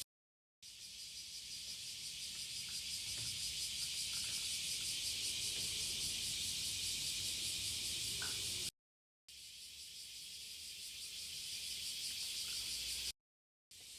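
Steady, high-pitched chorus of insects with a fast, even pulsing. It breaks off into dead silence twice and fades back in each time.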